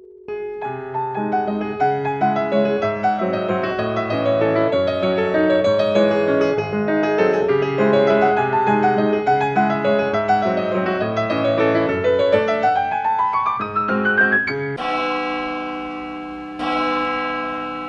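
Piano music: a fast flow of notes, then a rising run of notes near the end, closing on two struck chords left to ring.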